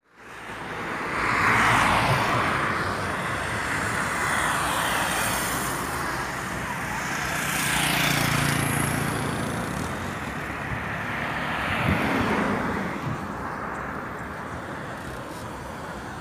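Road traffic: vehicles passing one after another, the sound swelling and fading about two, eight and twelve seconds in, with a low engine hum on the middle pass.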